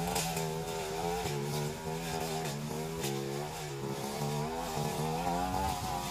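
Backpack brush cutter's small engine running while its blade cuts through weeds and brush, the engine note rising and falling as the load changes, with a few brief swishing strokes.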